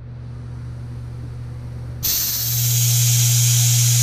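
PM30-MV milling machine running with a steady hum. About two seconds in, a mist coolant nozzle aimed at the end mill starts spraying with a loud, steady hiss.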